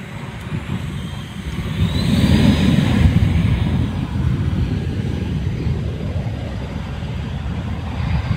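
easyJet Airbus A320-family airliner's twin jet engines spooling up to takeoff thrust: a rising whine about two seconds in, then a steady loud rumble.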